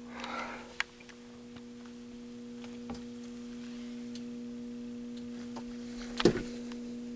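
Steady low electrical hum, with a brief rustle near the start, a few faint clicks and one sharper knock about six seconds in.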